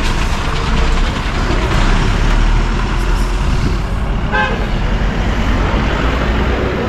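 Bus engine running close by as the bus passes, over steady street-traffic noise. A short horn toot sounds about four seconds in.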